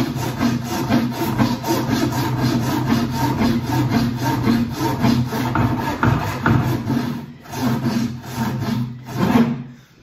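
Large wood rasp filing the wooden block of a snooker table cushion in quick, repeated rasping strokes to finish its shape. There is a short break about seven seconds in, and the rasping stops near the end.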